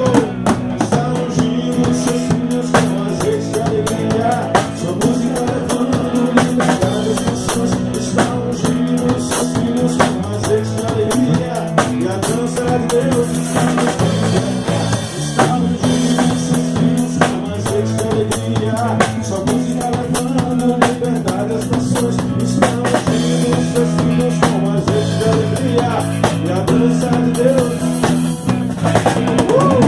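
Instrumental break of a rock-style worship song played live by a band: a drum kit keeping a steady beat with snare rimshots and bass drum, under electric bass and guitar playing changing chords.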